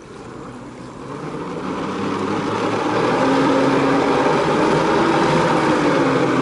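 Jet ski engine throttling up to power a flyboard's water jet, growing louder over the first three seconds and then running steadily at high revs, with the rush of the jet's spray behind it.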